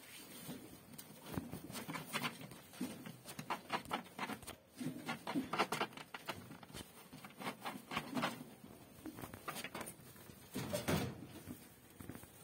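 Dry straw bedding rustling and crackling in an irregular run of light, scratchy sounds, with a louder rustle near the end.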